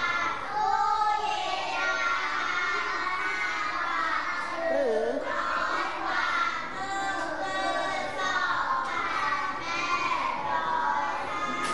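A class of children reading aloud together in unison, a many-voiced, sing-song choral chant at a steady level.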